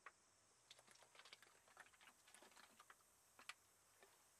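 Near silence, with a few faint, scattered ticks and clicks.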